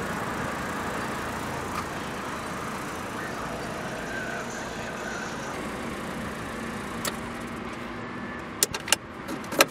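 Steady outdoor background noise with no engine running, then a few sharp clicks and knocks near the end.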